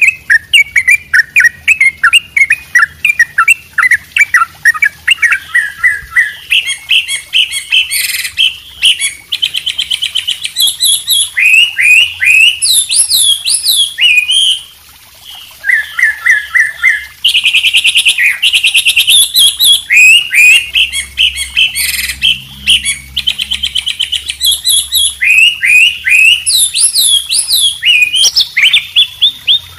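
A mix of songbirds singing: white-rumped shama, yellow-vented bulbul and wambi. The song is a dense, nearly unbroken run of quick chirps, sharp down-slurred whistles and short fast trills, with a brief pause about halfway through.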